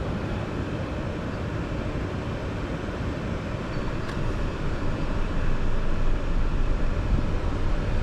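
A car driving along slowly: steady road and engine noise heard from inside the car, growing louder about halfway through.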